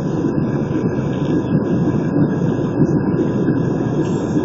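Airbus A320 cabin noise during the climb after takeoff: a steady low rumble of engines and rushing air with a faint steady whine, heard inside the cabin.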